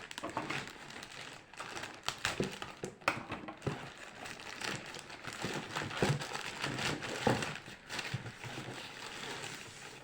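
Packaging crinkling and rustling as it is handled and opened by hand, with irregular crackles and a few sharper snaps.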